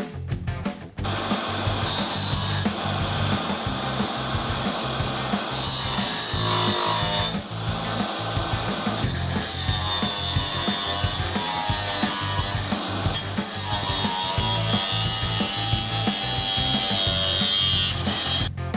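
Angle grinder grinding steel, starting about a second in: a dense, steady hiss with a whine whose pitch dips and recovers as the disc bites.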